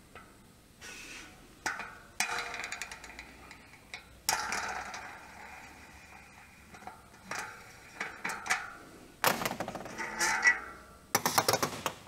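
Metal clicks and short runs of rapid clicking from an Industry 9 bicycle hub being reassembled by hand with tools, with two brief whirring spins that die away, about two and four seconds in.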